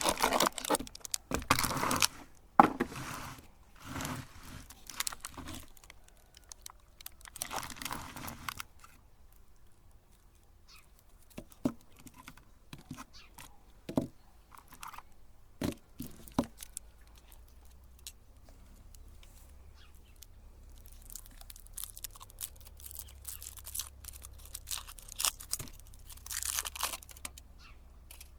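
Chocolate umbrella candies crunching and crinkling in irregular bursts. The noise is dense for the first eight or nine seconds, thins to scattered sharp clicks, then grows dense again near the end.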